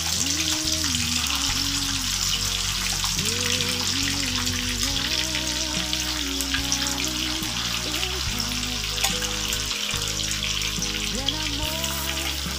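Chicken pieces deep-frying in hot oil, a steady crackling sizzle, with a metal spatula turning the pieces now and then. A song's melody and bass play over the frying throughout.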